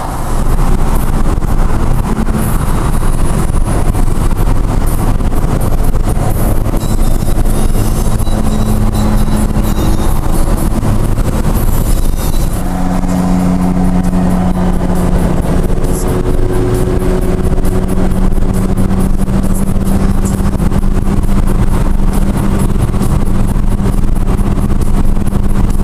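Inside a car at motorway speed: a steady engine drone with road and tyre rumble and wind noise, the car cruising at an even speed.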